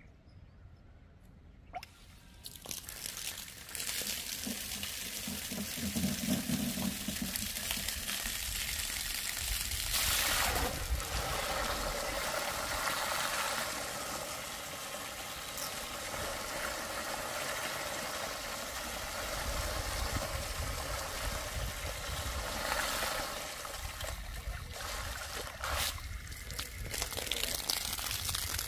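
Water splashing and gushing steadily as a homemade PVC pump with a 775 DC motor runs submerged and throws out a jet of water. It starts about three seconds in, after a near-quiet moment.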